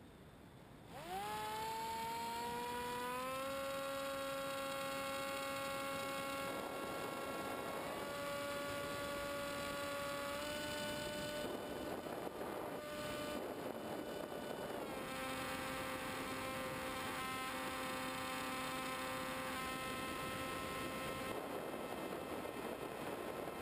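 Multiplex EasyStar model plane's electric motor and propeller, recorded by the onboard camera, spinning up about a second in to a steady whine with several overtones. The pitch steps slightly with the throttle a few times, and wind rushes over the microphone now and then.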